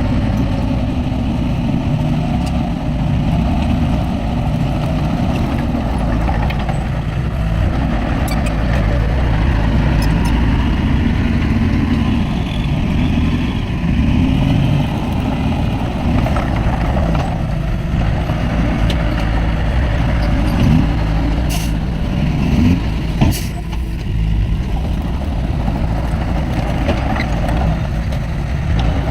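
Heavy diesel earthmoving machinery running steadily under load, a deep continuous engine rumble, with a couple of sharp metallic knocks about two-thirds of the way through.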